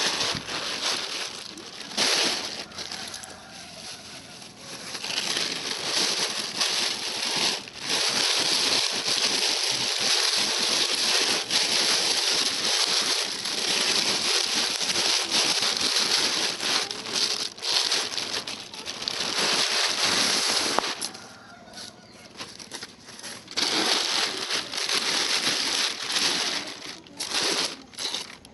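Plastic sheeting rustling and crinkling in long irregular stretches as a new collapsible crab trap is unwrapped and handled, with a short lull about 21 seconds in.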